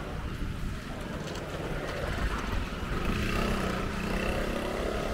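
Street traffic with a motor vehicle's engine running close by. Its steady hum grows a little louder about three seconds in, over a low rumble.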